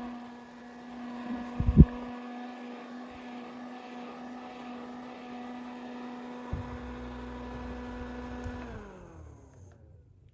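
Mini spray fan's small electric motor running with a steady hum, with a sharp knock about two seconds in and a softer one later. Near the end it is switched off, and the hum falls in pitch as the fan winds down to silence.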